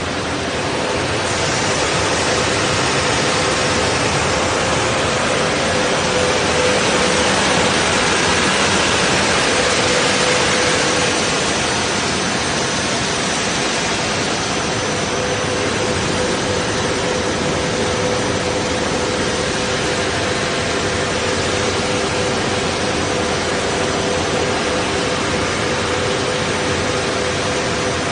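Double-side plywood sanding machine running: a loud, steady hiss with a constant hum, a little louder for about the first third.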